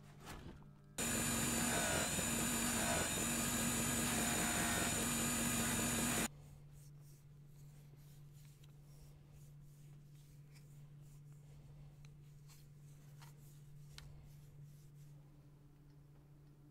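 A small electric workshop machine starts about a second in, after being coaxed to start. It runs loud and steady with a high whine, then cuts off suddenly about six seconds in, leaving a low steady hum and a few faint ticks.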